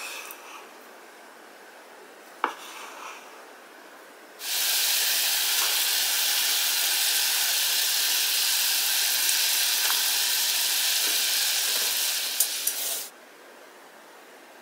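A kitchen knife cuts through fish roe and knocks on a bamboo cutting board, once at the start and again about 2.5 s in. Then a pan of soy sauce, mirin and sake bubbles and sizzles at a hard boil for about nine seconds, with a couple of small clicks near the end, before stopping suddenly.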